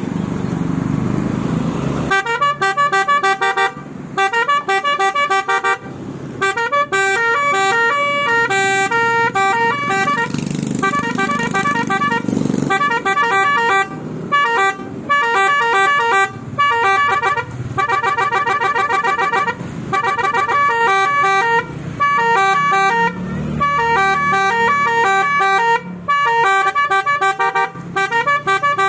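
Telolet horn on a Suzuki APV: several horn trumpets toot fast, jingle-like melodies on a few fixed notes. It starts about two seconds in, over a low engine rumble, and plays in phrases with short breaks between them.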